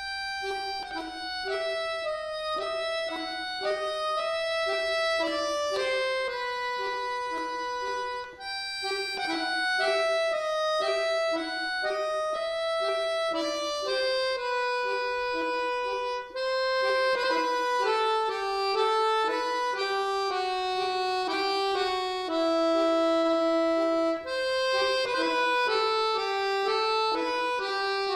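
Solo button accordion playing, starting a piece from silence: a melody line in the right hand over repeated lower accompaniment notes, with short breaks between phrases about every eight seconds.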